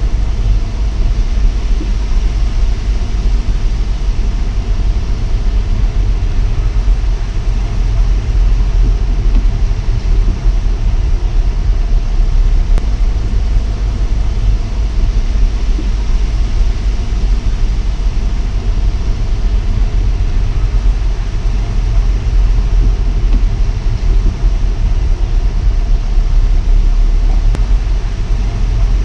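Steady low rumble of a car driving along beach sand, heard from inside the moving car.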